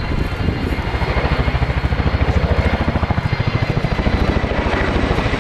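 Boeing Chinook HC2/HC3 tandem-rotor helicopter flying a close, low pass, its turbines running under a rapid, even beat from the rotor blades that grows stronger after about a second.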